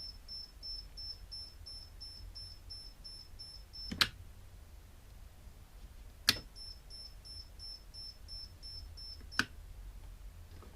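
An electronic beeper sounding rapid high-pitched beeps, about four a second. A sharp click about four seconds in cuts it off, another click a couple of seconds later starts it again, and a third click near the end stops it.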